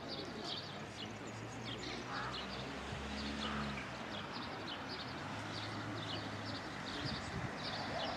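Small birds chirping, short high chirps repeated a few times a second, over a faint low hum that swells at times.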